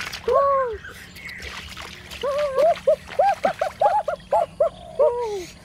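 An animal whining in a run of short calls, each rising then falling in pitch. A longer falling call comes near the start and another near the end.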